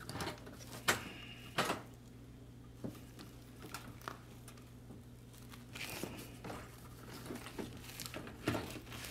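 Handling noise from a fuel pump assembly being worked down into a fuel tank's opening: scattered light clicks and knocks with some crinkling, the two sharpest about a second in and a little later. A faint steady hum lies underneath.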